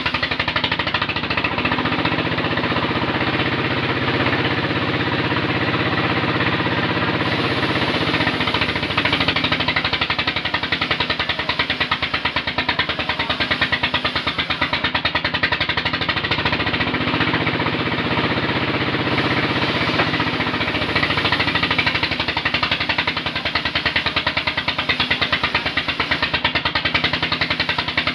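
Engine of a jeep-mounted mobile sawmill running steadily with a rapid, even knocking beat. A lower droning tone comes in twice, for several seconds each time.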